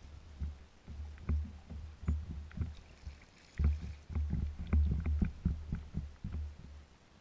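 Small waves slapping and knocking against a kayak's hull, an irregular run of low thuds and light splashes that comes thickest in the middle and eases off near the end.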